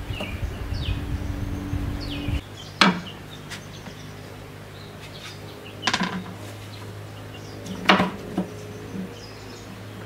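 Birds chirping for the first couple of seconds, then three sharp knocks and a lighter fourth of a heavy kitchen knife and stalks on a wooden cutting board.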